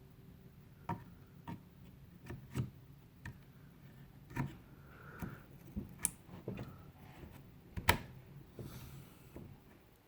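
Irregular small plastic clicks and taps from handling Corsair Vengeance RGB Pro memory sticks and snapping them into the motherboard's DIMM slot latches, the loudest click nearly eight seconds in.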